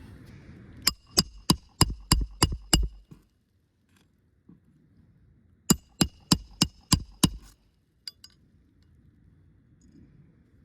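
Roofing hammer striking in two quick runs of about seven blows each, a metallic ring on every strike, as a roofing nail is driven back in with a roof snake under the shingle.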